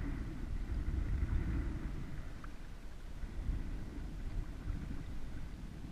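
Wind buffeting the microphone, a steady low rumble that gusts up and down, while kayaking against the wind.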